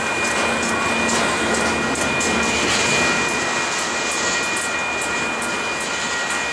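Freight train of covered hopper cars rolling past at steady speed: continuous wheel-on-rail rumble with scattered clicks and rattles, and a thin steady high-pitched whine running over it.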